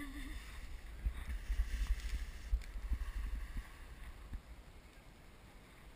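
Wind buffeting the microphone of a camera on a dragon boat's bow: a low rumble that swells for a few seconds and then eases, with a few short knocks.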